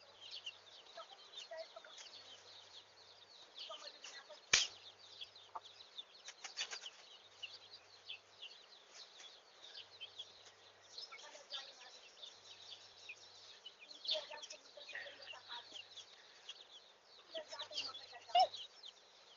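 Birds chirping and twittering throughout, many short high calls, with one sharp click about four and a half seconds in.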